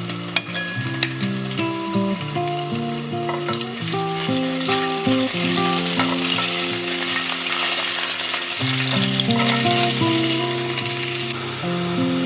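Food sizzling in a frying pan as it is stirred, with a few scraping clicks early on; the sizzle grows stronger in the middle and drops away near the end. Soft background music with slow held notes plays throughout.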